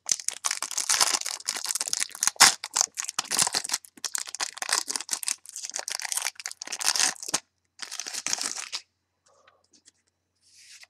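Crinkling and rustling of trading-card packaging and plastic card sleeves being handled, with many sharp clicks. It stops about nine seconds in.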